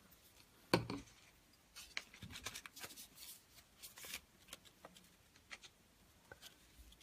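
A single sharp knock a little under a second in, then a glue brush scratching in quick short strokes across folded paper, thinning out to a few faint ticks.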